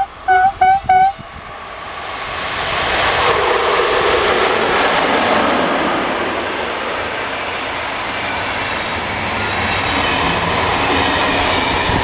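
Electric locomotive HŽ 1142 sounding several short horn toots, a greeting to the trackside filmer, then the loud rolling noise of the night train's passenger coaches passing close by, swelling from about two seconds in.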